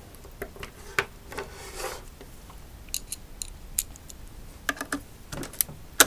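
Scattered sharp clicks and light clatter of hand tools and parts being handled while an electric unicycle is taken apart, with a short scrape about a second and a half in and the loudest click near the end.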